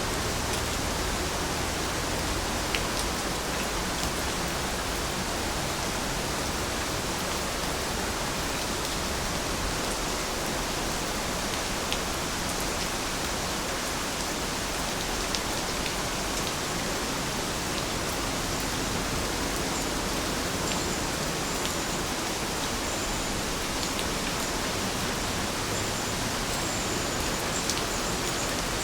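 Steady rain falling, an even hiss with scattered sharper ticks of individual drops.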